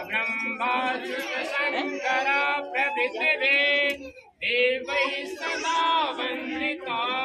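A group of people singing together, several high voices overlapping, in a ritual gathering around a havan fire.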